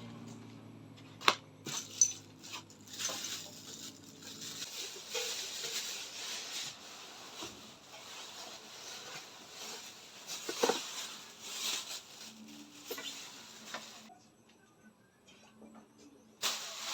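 Rustling and knocking of packaging and ceiling-fan parts being handled, with two sharp clicks about a second and two seconds in. A low steady hum stops about five seconds in, and it goes quiet for a couple of seconds near the end.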